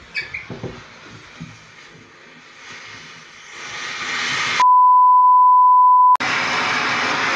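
Confetti Lights Phantom fountain firework hissing as it sprays sparks, with a few knocks early on, the hiss building to a loud steady rush from about three and a half seconds in. Midway a loud steady beep tone replaces all other sound for about a second and a half, then the fountain's loud hiss returns.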